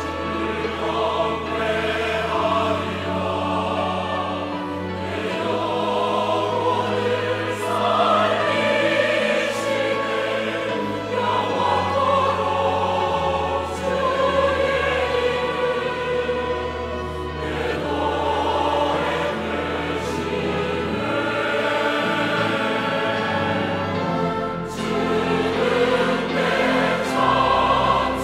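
Large mixed church choir singing a hymn anthem in Korean, accompanied by organ, piano and a small string orchestra, with held bass notes under the voices.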